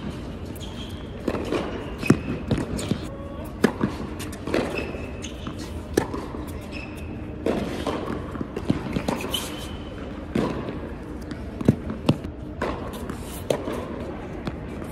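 Tennis rally on an indoor hard court: sharp racquet strikes and ball bounces about once a second, echoing in a large hall, with short high squeaks from tennis shoes on the court surface.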